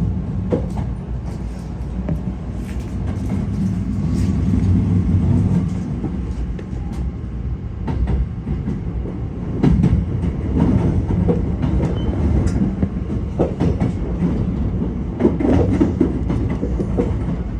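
Electric train running on rails: a steady low rumble with scattered clicks and knocks as the wheels pass over rail joints.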